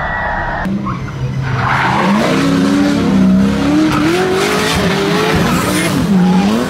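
A race-car engine running steadily, then, after a cut about two-thirds of a second in, a drift car's engine revving up and down as it slides sideways with tyres squealing and skidding.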